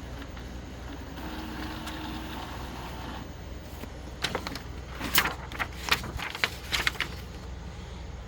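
Epson ET-2760 EcoTank inkjet printer running through its maintenance cycle. A motor whirs for about two seconds, then a run of sharp clicks and clacks follows from its mechanism.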